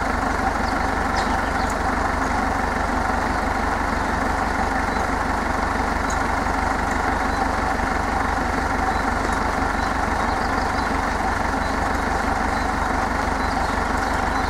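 Tractor engine idling steadily, with an even low throb.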